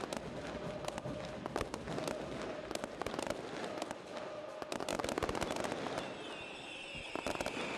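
Firecrackers going off in rapid, irregular crackling strings. About six seconds in they die down and a steady high-pitched whistling sound takes over.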